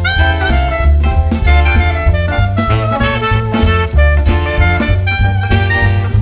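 Jazzy background music with saxophone or brass lead, a walking bass and drum kit.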